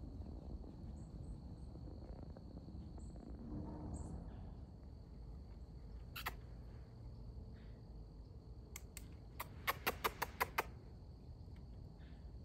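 Outdoor woodland ambience: a low steady rumble and a thin, steady high insect-like whine, with a single sharp click about halfway and a quick run of about eight sharp clicking calls about three-quarters of the way through.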